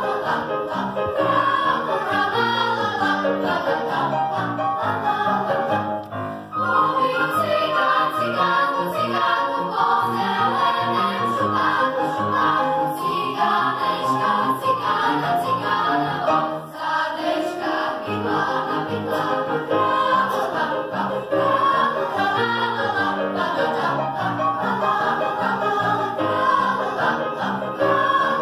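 Children's choir singing with grand piano accompaniment, with brief breaks between phrases about six and seventeen seconds in.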